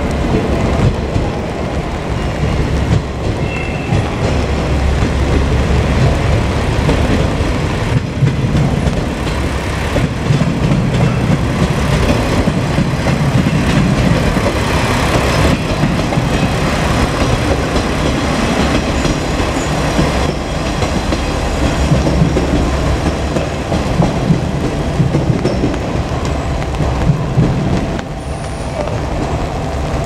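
Two-car JR Kyushu KiHa 47 diesel railcar set passing by: diesel engines running and steel wheels rolling on the rails.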